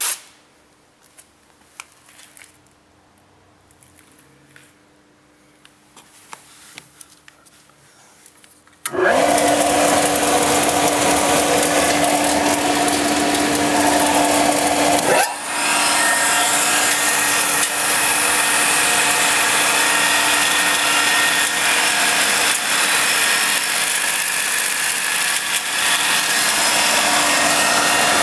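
Scantool belt grinder: a few quiet clicks, then about nine seconds in a loud, steady hum with a dense hiss starts suddenly, as metal is ground on the abrasive belt. The sound dips briefly about six seconds later and then runs on steadily.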